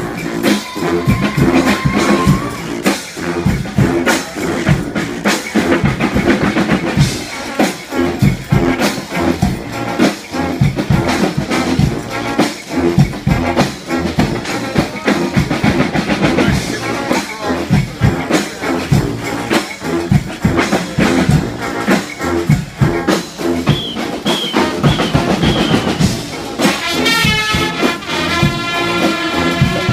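Massed brass and percussion street band playing, with busy drumming and a repeating low riff underneath. Near the end, the horns come in loud on high held notes.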